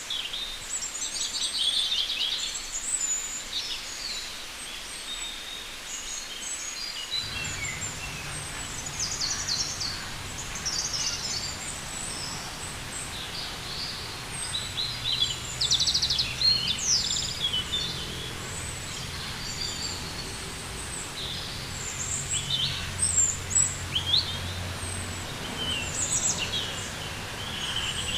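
Several birds chirping and trilling in quick, overlapping calls. From about seven seconds in, a low steady rumble runs underneath.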